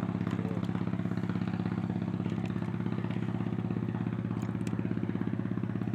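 A small engine running steadily with a rapid, even chugging pulse. A cat meows faintly about half a second in.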